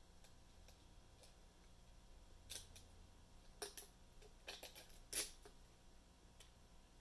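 Scattered light metallic clicks and taps of a lock pick and tension wrench working the pins of a small pin-tumbler lock cylinder held in a vise, the loudest click about five seconds in, between long quiet stretches.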